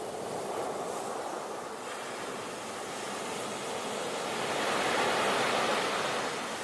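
Sea waves washing onto the shore: a rush of surf that builds to a louder swell about two-thirds of the way in, then eases back.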